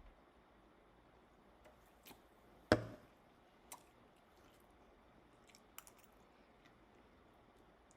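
A person eating close to the microphone: faint, scattered mouth clicks and smacks, with one louder smack about three seconds in.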